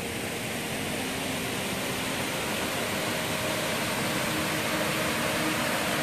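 River water rushing over a shallow rocky bed and a low concrete ford, a steady hiss that grows a little louder.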